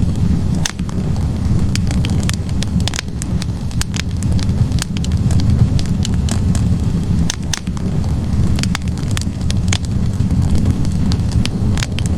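Log fire burning in a fireplace: frequent sharp, irregular crackles and pops of the burning wood over a steady low rumble of the flames.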